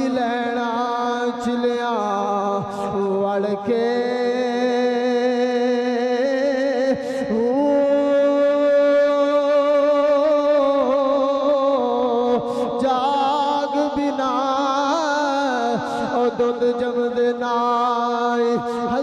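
A man's voice chanting a slow melody in long, held, wavering notes, changing pitch about two seconds in and again about seven seconds in.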